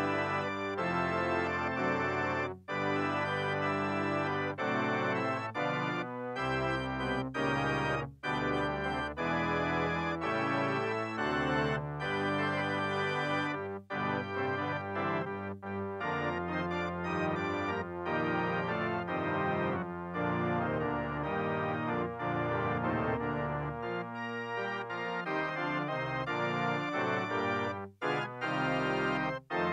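Organ postlude at the close of a church service: sustained chords played in phrases, with a few short breaks between them.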